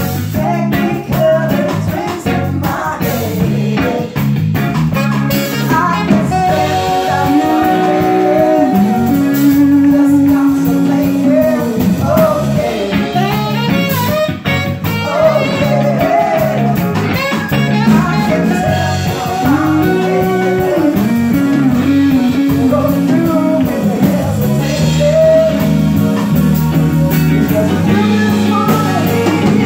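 Live band music: a woman singing lead into a microphone, backed by the band with electric bass, with long held sung notes.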